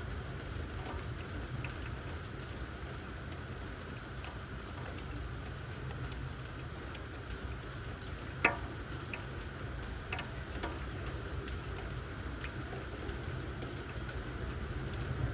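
Steady thunderstorm rain, with scattered drops ticking on a hard surface and one sharper tick about halfway through.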